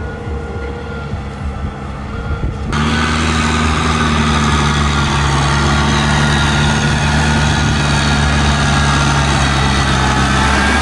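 Kubota farm tractor's diesel engine running steadily as the tractor drags a rotary tiller through wet paddy mud. It is fainter for the first few seconds, then close and loud from about three seconds in.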